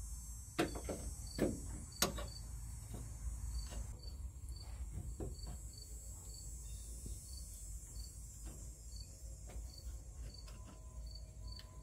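A steel C-clamp knocking a few times against a flat bar and the truck's frame as it is fitted over them, in the first two seconds, followed by quieter handling. Crickets chirp steadily in the background.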